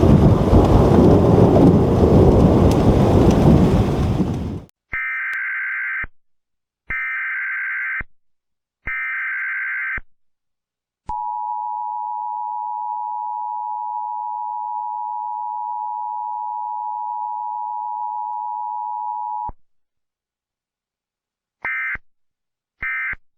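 Thunderstorm rain noise for the first four seconds or so, which then cuts off. An Emergency Alert System / NOAA Weather Radio alert sequence follows: three short bursts of data header tones, a steady attention tone of about eight seconds, and short end-of-message data bursts near the end.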